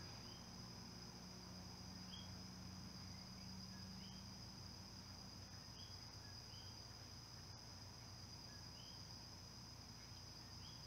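Faint insect chorus: a steady high trill, with short high chirps repeating every second or two.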